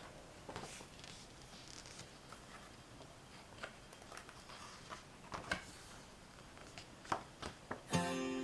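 Faint rustling and scattered light clicks and taps of paper and packaging being handled, with a few sharper clicks about five and seven seconds in. Music starts again at the very end.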